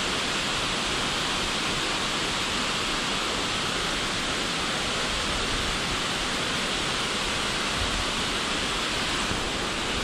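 Creek water rushing steadily, an even hiss with no breaks.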